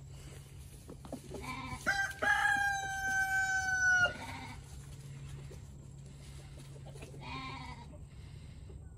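A rooster crows once, about two seconds in, ending on a long held note. A shorter, fainter animal call follows later.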